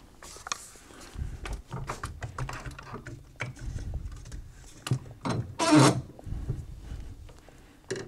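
Handling noises as a rifle is carried to a workbench and set down: scattered clicks and knocks of metal and wood, with one louder clatter about six seconds in.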